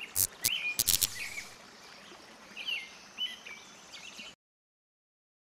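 Birds chirping in short, hooked calls over a faint hiss, with several sharp clicks in the first second. The sound cuts off suddenly about four seconds in.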